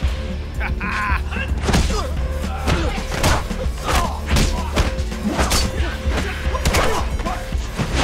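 Action-film fight soundtrack: a rapid series of punch and kick hit effects, about a dozen sharp impacts, over music with a steady deep bass.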